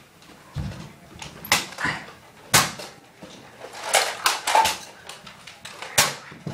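Irregular sharp knocks and clicks in a small room, about eight in all. There is a low thump just after the start and a quick cluster about four seconds in.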